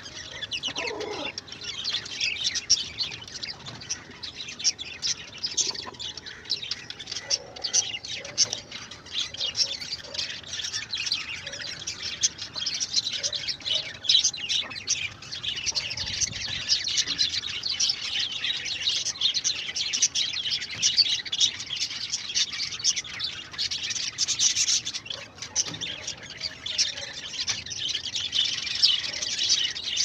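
Many small birds chirping continuously, a dense high-pitched twittering with no pause.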